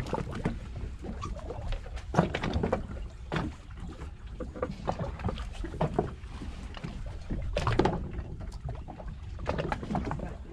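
Water lapping and slapping against the hull of a small fishing boat sitting on a calm sea, in irregular splashes and knocks over a steady low rumble.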